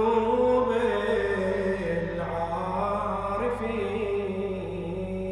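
A man's voice chanting an Arabic Ramadan supplication (du'a) in a slow, melodic style, drawing out long held notes that bend gently in pitch.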